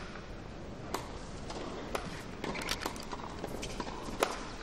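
Tennis ball struck back and forth in a rally: sharp single hits about once a second over a steady background hiss.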